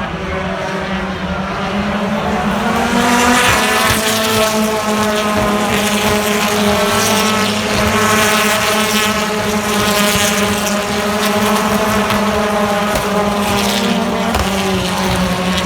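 British Touring Car Championship race car's 2-litre turbocharged four-cylinder engine running hard at high revs. It is loud and continuous, its pitch drifting slowly up and down.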